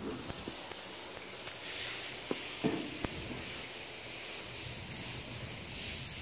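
Steady background hiss with a few faint clicks near the middle.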